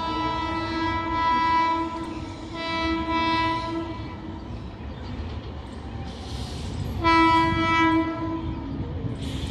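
WAP-7 electric locomotive's air horn sounding three blasts as the train approaches: a long blast that ends about two seconds in, a shorter one about three seconds in, and another about seven seconds in. A low rumble from the oncoming train runs underneath and grows near the end.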